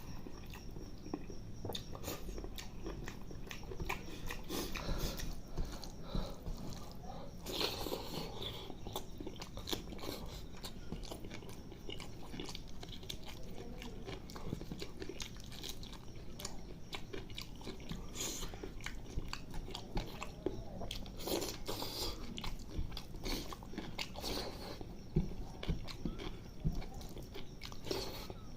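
Close-up eating sounds of chicken liver curry with rice: chewing, with many short irregular wet clicks and smacks.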